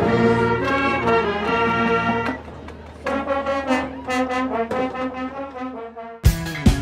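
A school wind band led by trombones and trumpets plays held chords in two phrases with a short break between them. Near the end it cuts abruptly to a different piece of music with a beat.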